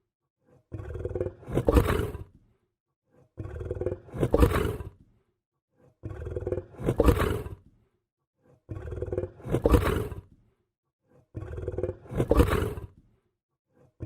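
A lion growl, the same recording looped five times about every two and a half seconds, with silence between. Each growl starts softer and swells to a loud peak before dying away.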